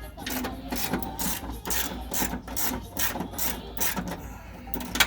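Hand ratchet being worked on a suspension bolt, a run of sharp clicking strokes about two a second.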